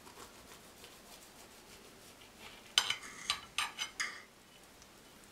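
Steel kitchen knife cutting a soft sponge cake on a ceramic plate, then scraping and clinking against the plate in a quick run of sharp clicks about three seconds in as a slice is worked loose and lifted.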